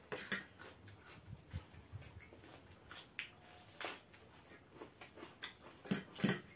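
Eating sounds: chewing and mouth noises, with spoons clicking and scraping against steel bowls, a few louder clicks near the end.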